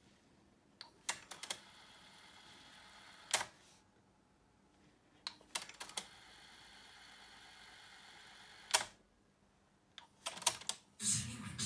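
A 1986 Technics RS-T60R double cassette deck, its drive belts newly replaced, being run through its transport functions: clusters of button clicks and mechanism clunks, twice followed by a few seconds of steady whirring as the tape winds, then stopped with a click. Near the end play is pressed and music from the tape starts.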